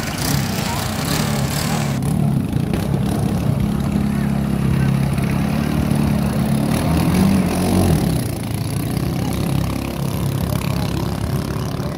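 Engines of small outrigger racing boats revving hard as the boats accelerate away from a standing start, the note rising and then dropping about two-thirds of the way through.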